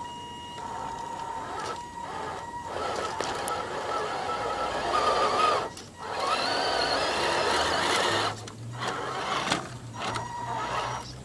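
Tamiya Hilux High-Lift RC truck's electric motor and gearbox whining as it crawls, stopping and starting several times, with the whine rising in pitch about six seconds in.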